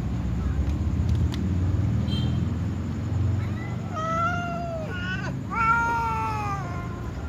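Cats meowing for food: two long meows that rise and fall in pitch, one about four seconds in and a louder one a second and a half later, the second from the black-and-white tom cat.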